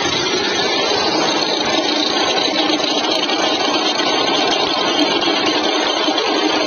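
Jeep Compass 2.0 diesel engine idling steadily, recorded for a strange noise that was traced to the alternator's freewheel pulley.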